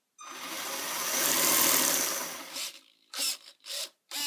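Axial RC car's electric motor and drivetrain whirring under throttle, rising to a peak and easing off over about two and a half seconds, followed by three short blips of throttle.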